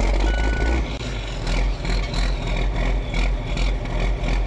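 John Deere 4640's six-cylinder diesel engine running steadily with a low rumble just after being started. A short high beep sounds about half a second in.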